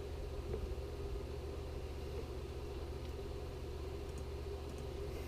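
Steady low background hum with no distinct events: room tone.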